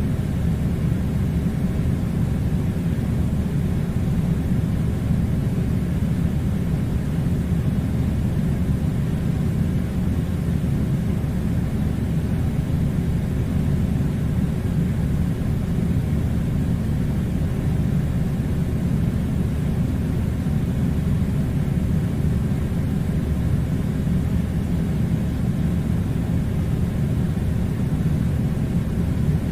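Air conditioner running with a steady low rumble, unchanging throughout.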